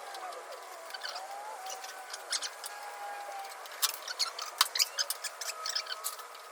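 New rubber Bailey channel squeaking and clicking as it is pushed and squeezed into the car door's window channel by hand, with sharper clicks from about four seconds in.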